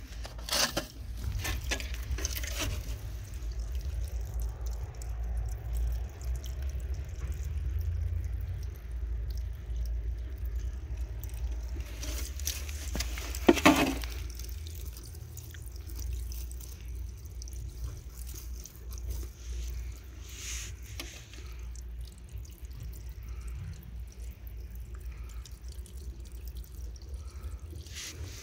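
Thin stream of water trickling from the outlet of a house's drainage pipe onto the ground: the drain is still carrying groundwater a week after the last rain. There is a low rumble underneath, a few clicks near the start and a single loud knock about halfway through.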